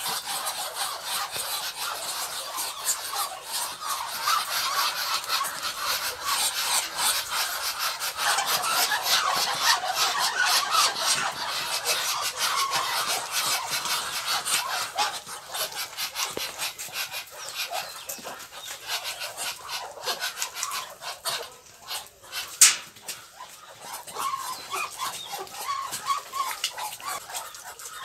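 Muscovy ducks calling: a dense run of short, scratchy sounds, loudest in the middle, with one sharp click about three-quarters of the way through.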